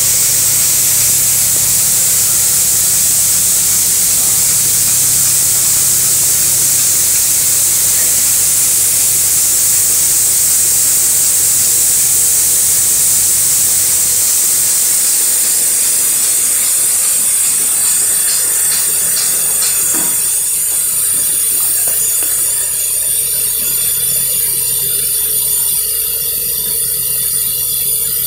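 A loud steady hiss, like pressurized air escaping, over a low hum. Past the middle it thins out and high whistling tones take over.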